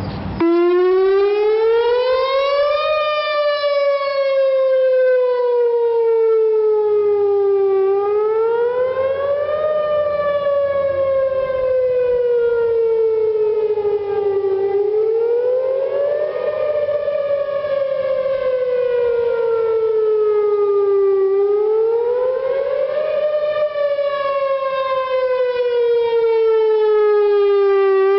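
Whelen 4008 electronic tornado warning siren sounding its wail tone. It cuts in sharply about half a second in. The pitch then rises for about two seconds and falls slowly for about five, a cycle of roughly seven seconds heard about four times.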